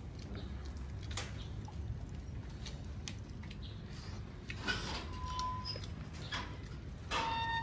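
People eating with their hands: soft chewing and crunching of fried chicken bones with scattered small clicks over a steady low hum. A short high-pitched whine near the end.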